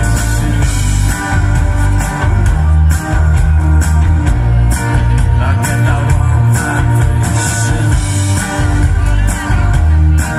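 Live rock band playing: drum kit with frequent cymbal and drum hits, a heavy bass line and electric guitars.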